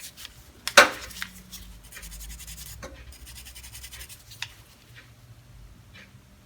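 Rusty hand tools being handled: one sharp metallic clack about a second in, then scraping and rubbing, and a few faint clicks near the end.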